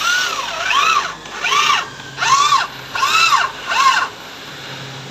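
Power drill motor whining, rising then falling in pitch about five times in quick succession as it spins up and slows, then stopping about four seconds in.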